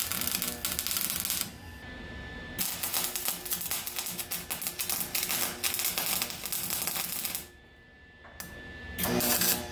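Arc welder crackling and sputtering as cracks in a wood stove are welded, in separate beads. There is a run of about a second and a half, a short pause, a run of nearly five seconds, a quiet gap, then a brief burst near the end.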